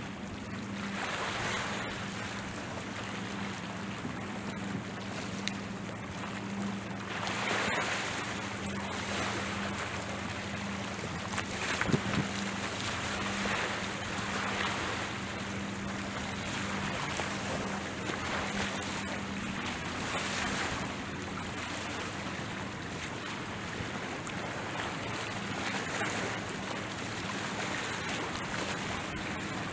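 Small waves splashing against the rocky shore, swelling every few seconds, with wind buffeting the microphone. A steady low drone of a distant motorboat engine runs underneath and fades near the end. There is one sharp knock about twelve seconds in.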